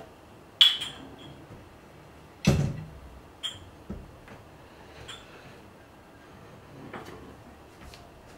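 Plates and cookware being handled: a sharp clink with a short ring about half a second in, a heavier knock about two and a half seconds in, then several lighter clicks and taps of plates and utensils.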